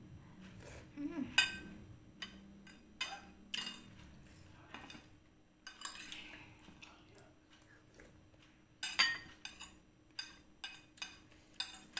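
Metal spoon clinking and scraping against a ceramic plate while eating, in scattered separate clinks every second or so, the loudest about nine seconds in and a quicker run of them near the end.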